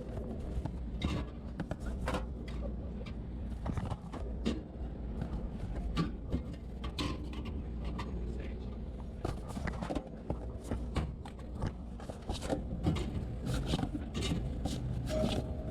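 Drink cans and bottles knocking and clinking irregularly as they are stocked into drinks fridges, over a steady low hum.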